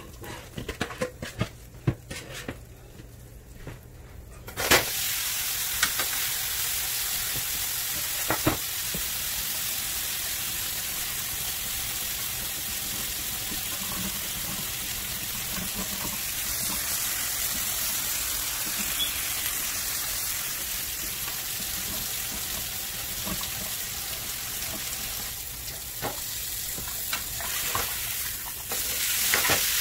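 A large bone-in cut of beef is laid into a skillet of very hot olive oil about four and a half seconds in, after a few faint clicks. It starts sizzling loudly and steadily as it sears. Near the end the sizzle dips briefly, then flares up again as the meat is turned with tongs.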